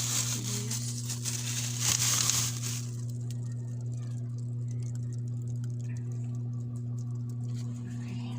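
Packs of dried fish being handled: crinkling and rustling of packaging for about three seconds, then quieter scattered handling noises. A steady low hum runs underneath.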